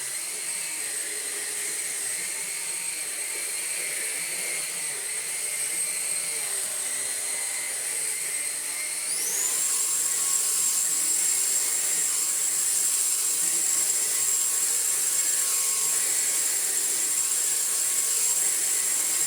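Numatic Quick NQ100 cordless bagged stick vacuum running over carpet, its motor giving a steady high whine with a motorised brush head working. About halfway through, the motor speeds up with a rising whine and settles louder at a higher pitch.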